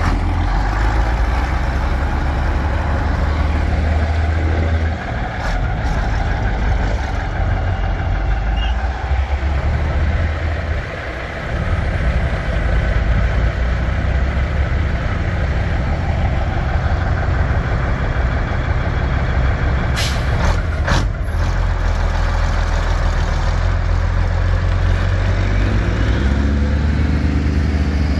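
Diesel engines of vintage heavy truck tractors running as they pull out one after another: a deep, steady drone that dips twice and rises in pitch as one accelerates near the end. Two short, sharp sounds come about twenty seconds in.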